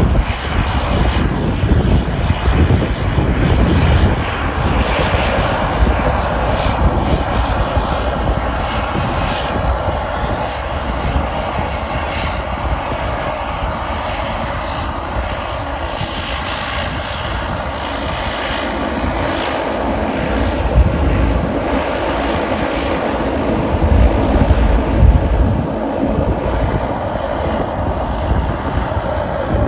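Airliner engines running loud and steady, with a deep rumble and a brief swell near the end.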